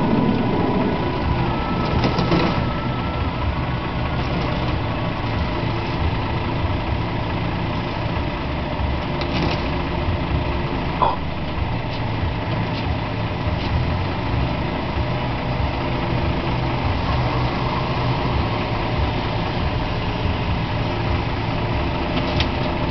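Tow truck's engine running at a steady idle.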